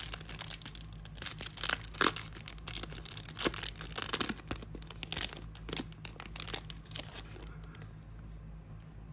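Foil-lined trading-card pack being torn open and crinkled by hand: a run of sharp rips and crackles that thin out and fall quiet over the last couple of seconds.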